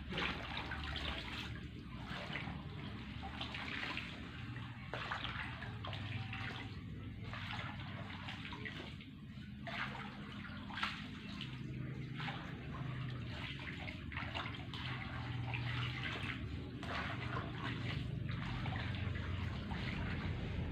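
Shallow pond water sloshing and splashing in uneven swells as azolla is scooped up with a plastic basket and the water drains out through it.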